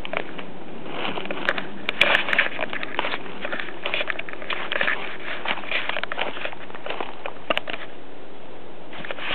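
Footsteps crunching and rustling through dry leaf litter and twigs on a woodland floor, irregular and in clusters, over a steady hiss.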